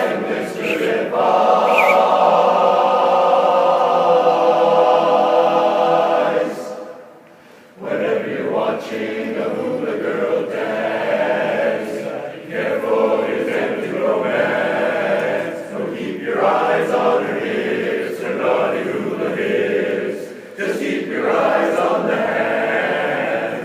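An a cappella chorus singing. A long chord is held for about the first six seconds, there is a short break about seven seconds in, and then the singing goes on with changing chords.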